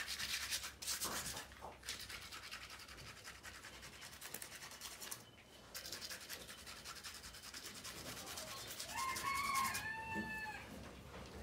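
A hand rubbing wet paint and earth pigment across a sheet of paper in quick, repeated scratchy strokes. About nine seconds in, two short pitched calls with gliding pitch are heard over the rubbing.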